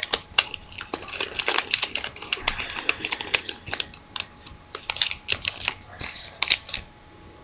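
Stiff origami paper rustling and crinkling as a folded paper knife is opened, pulled up and closed by hand: a quick, irregular run of crisp clicks and rustles that thins out near the end.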